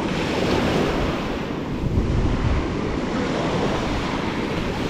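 Small waves breaking and washing up a sandy beach, with gusty wind rumbling on the microphone.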